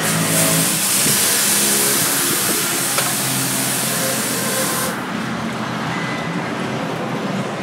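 Hot steel blade hissing and steaming as it is quenched in a water trough: a loud, steady hiss that eases off about five seconds in. A steady low hum runs underneath.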